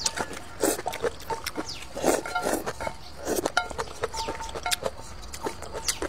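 Close-up eating sounds: slurping spicy noodles and wet chewing, with wooden chopsticks clicking against a metal bowl, which rings briefly several times.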